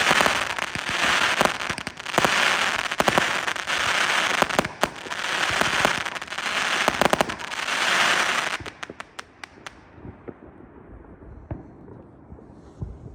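Fireworks going off in loud waves of dense crackling, each about a second and a half long, mixed with sharp bangs. The crackle stops about two-thirds of the way in, leaving a few last pops and then a low background.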